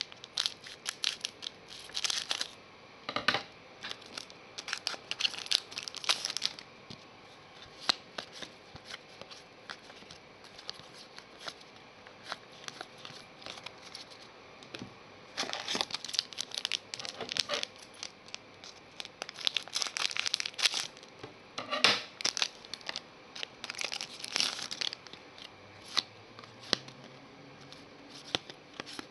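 Foil trading-card pack being torn open and its wrapper crinkled: crackly rustling in bursts through the first several seconds and again in the second half, with quieter stretches of card handling between.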